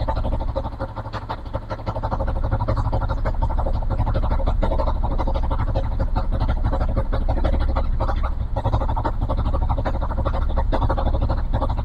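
Yamaha Jupiter MX King's liquid-cooled single-cylinder four-stroke engine idling steadily, its valves freshly adjusted, while its cooling system is refilled after a water-pump seal replacement.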